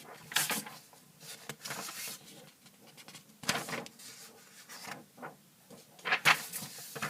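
Sheets of paper rustling and swishing as they are handled and turned over, in several short bursts with quiet gaps between them.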